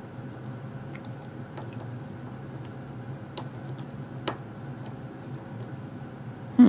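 Faint, scattered clicks of a lock pick working the pins of an Abus padlock core under tension, with two clearer clicks around the middle and a louder dull thump near the end.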